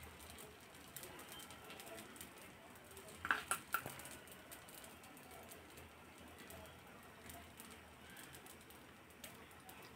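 Mostly quiet, with a quick cluster of three or four metal clinks about three seconds in: a steel spoon knocking against a steel bowl while scooping idli batter.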